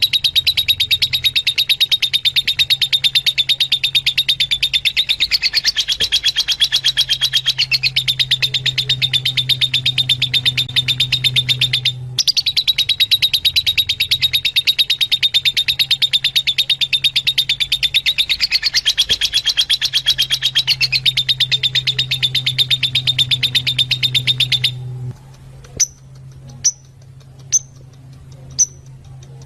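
Fischer's lovebirds chattering in a fast, unbroken stream of high chirps over a low hum. About 25 seconds in the chatter stops, leaving four single sharp chirps about a second apart.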